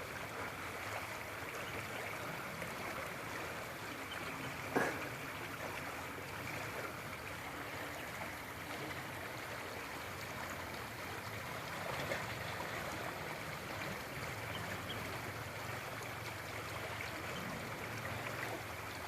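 Creek water running high after rain, a steady rushing flow, with one short sharp knock about five seconds in.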